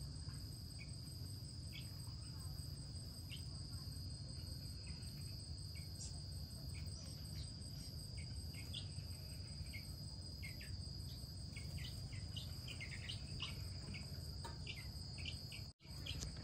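A steady, high-pitched insect trill runs throughout, with short faint chirps scattered across it, more of them in the second half. The sound cuts out for a moment near the end.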